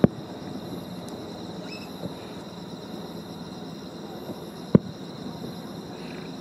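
Fireworks shells bursting: two short, sharp booms, one right at the start and one about five seconds later, over a steady background hiss.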